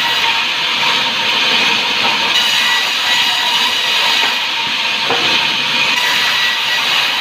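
Sawmill saw cutting through timber: a loud, steady hissing noise with a faint high whine running through it.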